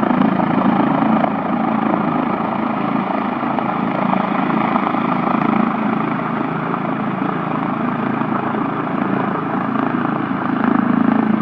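V-22 Osprey tiltrotors' twin rotors and engines running in a steady, loud drone as they fly low and settle into their own dust cloud. The sound swells slightly near the end.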